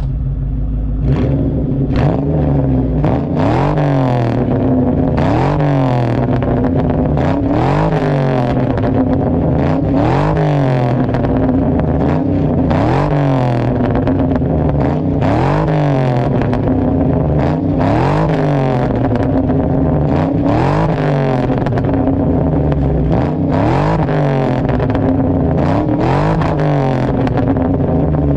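Ford 4.6-litre V8 of a 1999–2004 Mustang GT, breathing through a DNA Motoring cat-back exhaust and a catless JBA off-road H-pipe, heard at the tailpipe. It idles, then from about a second in it is blipped over and over, the pitch rising and falling back every second or two.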